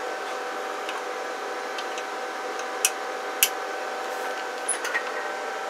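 Steady electrical hum with a few fixed tones, and two sharp light clicks about three seconds in, with fainter ticks near the end, as a 1K resistor is refitted on the CB radio's circuit board.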